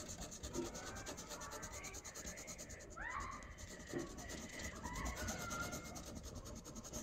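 Pencil rubbing and scratching on drawing paper in quick short strokes while shading and working curly hair.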